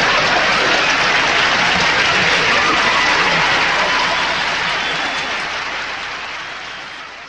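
Studio audience applauding steadily, then fading out over the last few seconds.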